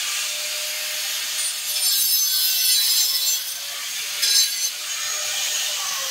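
Small electric angle grinder cutting through a short piece of PVC water pipe: a steady high hiss of the disc in the plastic over the motor's even tone, swelling louder a few times as the disc bites.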